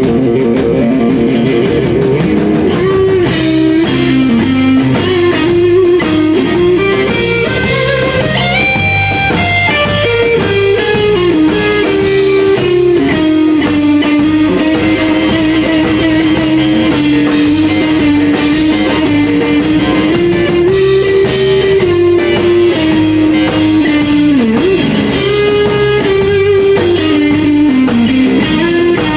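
Live blues-rock band: a Stratocaster-style electric guitar plays a lead line of long, sustained notes with pitch bends, over a drum kit.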